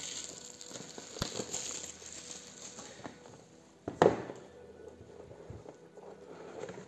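Plastic shrink-wrap crinkling as it is handled and pulled from a cardboard board game box, then a sharp knock about four seconds in as the box is set down on the table, followed by faint handling rustle.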